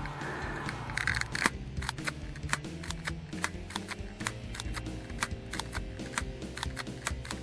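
Background music with a quick, regular ticking beat, about four to five clicks a second over held notes, coming in about a second in.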